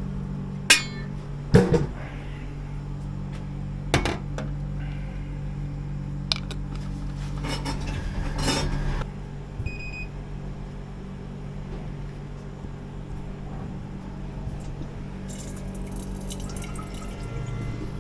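Glass milk bottle clinking a few times as it is handled at a milk vending machine, over the machine's steady hum; about halfway through, a couple of seconds of rushing noise as the machine dispenses, then a short beep.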